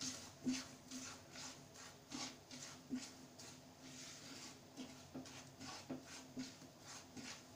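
A spatula scraping and stirring roasted semolina and gram flour in ghee in a non-stick pan, a soft scrape with each stroke, about two strokes a second.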